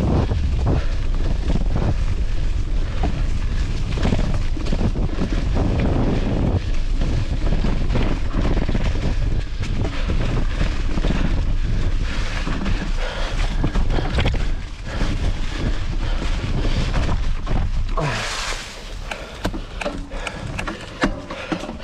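Strong wind buffeting the microphone as a steady low rumble, with scattered knocks. About 18 seconds in the rumble eases and a higher hiss takes over.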